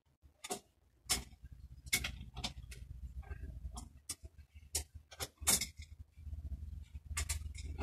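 Irregular sharp metallic clicks and taps from a BMX pedal and hand tool as the pedal is worked on and tightened on the crank, over a low steady background hum.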